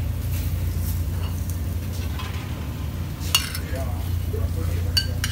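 Steady low hum of a commercial kitchen, with two sharp metallic clinks of utensils or pans, one about three seconds in and one near the end.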